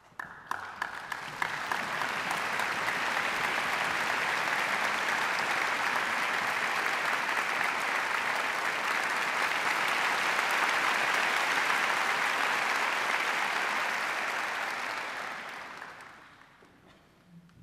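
Audience applause: a few scattered claps that swell within the first second or two into steady clapping, which dies away near the end. It greets the soloist and conductor as they walk on stage.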